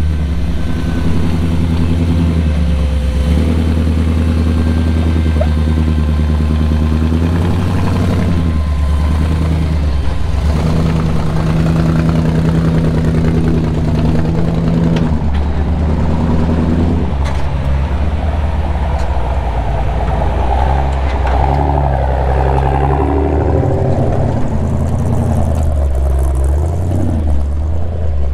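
Supercharged 454 big-block V8 of an off-road tow truck running at low speed on a rock trail, its revs rising and falling every few seconds.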